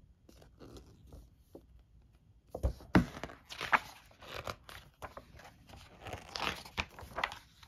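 Paper pages of a game rulebook being turned and handled: rustling and crinkling paper, with two soft knocks about three seconds in.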